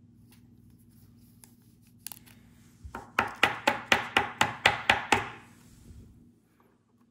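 A sleeved trading card going into a rigid plastic top loader: a few light clicks, then about nine quick, sharp taps on the table, roughly four a second.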